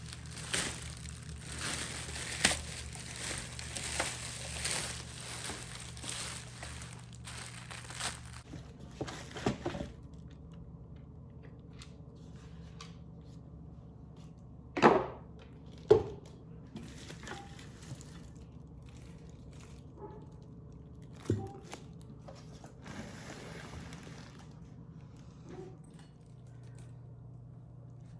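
Packaging crinkling and rustling for the first eight seconds or so as an Instant Pot pressure cooker is unpacked, followed by a few sharp knocks of items being handled and set down.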